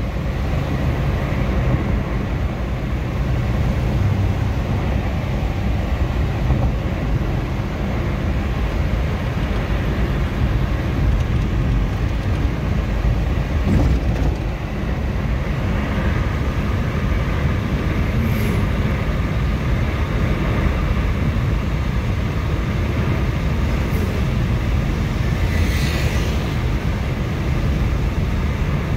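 Steady road noise inside a moving car at highway speed: a constant low rumble of tyres and engine.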